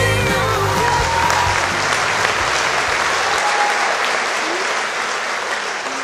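Theatre audience applauding as the dance music ends, the last of the music's bass dying away under the clapping about three seconds in.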